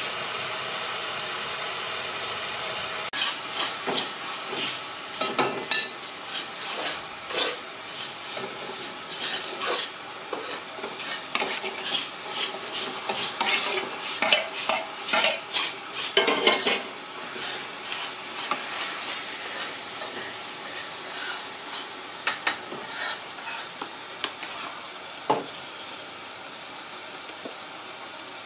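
Onions sizzling in an aluminium cooking pot while a steel spoon scrapes raw mutton pieces off a steel plate into it, with many quick metal clinks, scrapes and knocks against pot and plate. The clatter is densest in the middle and thins out near the end, leaving the steady sizzle with a few knocks.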